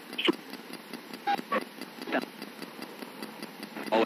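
Spirit box (radio ghost box) sweeping through stations: steady static with rapid, even ticking, broken by short chopped fragments of radio voice, about a quarter second in, around a second and a half in, at two seconds and again near the end. The fragments are taken for spirits giving names.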